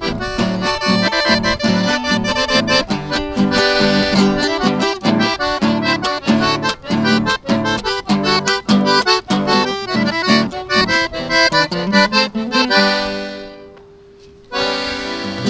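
Accordion playing a rhythmic tune, with chords over punchy bass notes. About 12.5 s in it closes on a held chord that fades away. Another tone starts shortly before the end.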